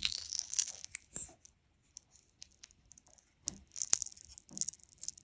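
Sticky crackling and tearing as a thin wooden strip works into a wooden joint of soft, uncured epoxy, which stayed mushy because the resin and hardener were not mixed one-to-one. The sound comes in two spells, with a sharp click in the second.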